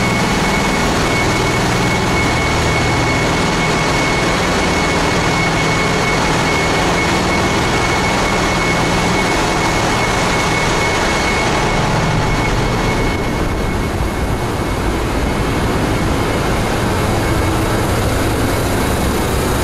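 Loud, steady noise of a Capesize cargo ship's engine room: machinery running continuously, with a high steady whine over it. About thirteen seconds in, the noise turns slightly duller and the whine fades.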